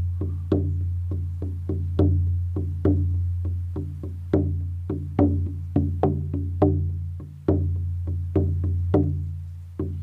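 16-inch horse skin frame drum with an ash frame, struck steadily with a firm beater at about three beats a second, some beats accented. Each strike leaves a low ringing boom that carries on under the next one, with a brief pause a little past the middle.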